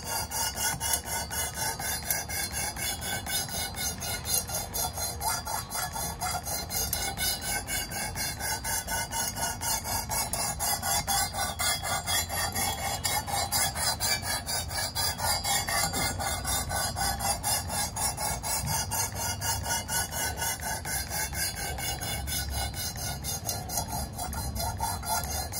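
Abrasive sharpening plate of a Work Sharp guided knife sharpener rasping back and forth along a clamped knife's edge, in steady strokes about two to three a second. This is coarse-grit work, 220 grit, grinding down a divot in the edge.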